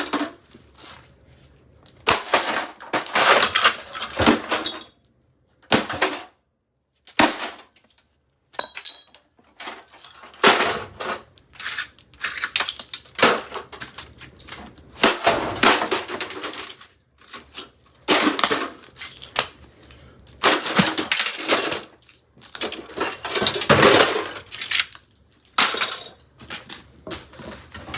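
Hamilton Beach microwave oven being smashed apart: repeated crashing and breaking of its casing and parts, in clusters of blows every second or two, with a few short silent breaks.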